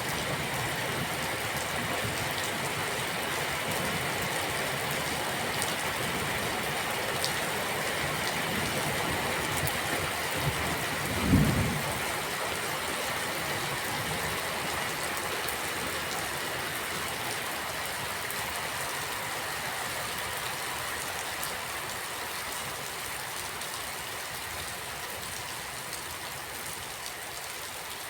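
Steady rain falling, an even hiss of drops on surfaces, with one brief low thump a little before the halfway point. The rain grows slightly softer toward the end.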